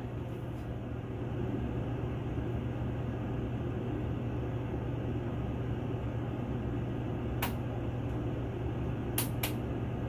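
Steady low mechanical hum with an even hiss, from a fan or small motor running, with a few light clicks about seven and nine seconds in.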